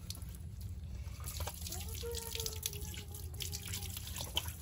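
Water running from a small plastic tap and splashing into a cement basin as hands are rinsed under it, with a steady patter of small splashes and drips.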